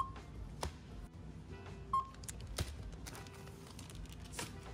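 Two short electronic beeps from a store checkout barcode scanner, about two seconds apart, with a few sharp clicks between them. Background music plays underneath.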